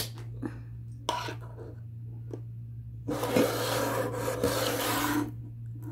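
A few knocks, then about two seconds of steady rubbing or scraping noise, over a constant low hum.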